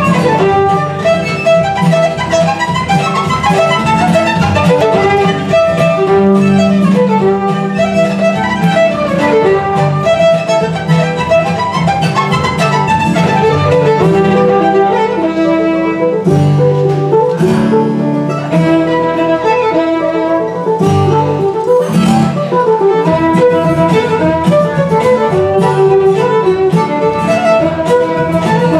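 Fiddle playing an Irish reel, a continuous stream of quick bowed notes with sustained lower notes beneath.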